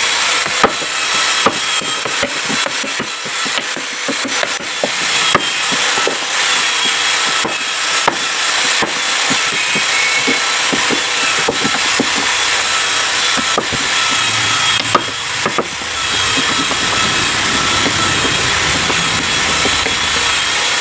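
Flat chisel cutting into wood: irregular sharp clicks and scraping over a steady mechanical noise, with a lower rumble joining about fourteen seconds in.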